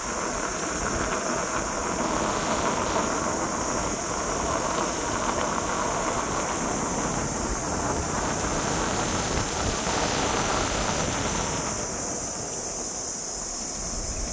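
Wind rushing over the microphone and tyre rumble from riding an electric unicycle along a paved road, with a steady high-pitched hiss underneath. The rushing swells briefly a couple of times.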